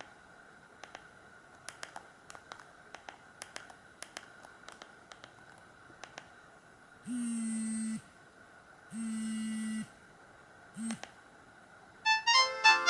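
Alcatel OT-117 mobile phone: faint keypad clicks, then three steady low buzzing tones, two long and one short, then a ringtone melody starts near the end.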